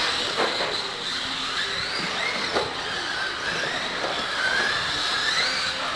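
Radio-controlled stadium trucks driving laps, their motors whining and gliding up and down in pitch with the throttle. A few short knocks come from the trucks hitting the track or ramps.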